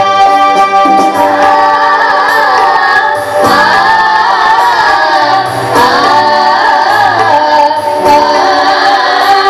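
A group of teenage girls singing an Onappattu, a traditional Onam song, together into microphones, with electronic keyboard accompaniment. The voices come in about a second in over the keyboard's held chords.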